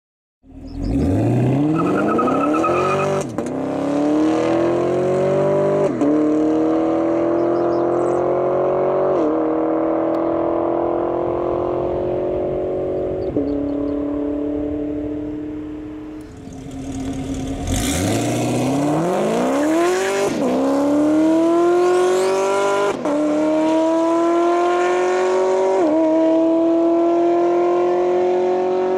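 2016 Chevrolet Camaro SS's 6.2-litre LT1 V8 accelerating hard twice from low speed, the engine note climbing and dropping back at about four upshifts in each run. The first run is on the stock exhaust, the second on long-tube headers and a catless X-pipe into the stock NPP mufflers.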